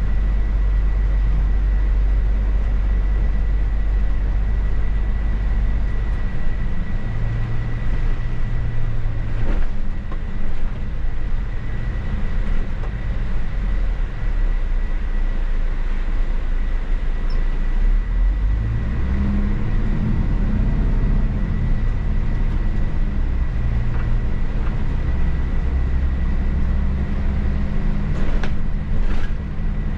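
A Mercedes-Benz city bus driving, heard from the driver's cab: a low engine drone that rises and falls as the bus speeds up and slows. A thin steady high tone runs under it, with a few short knocks and rattles.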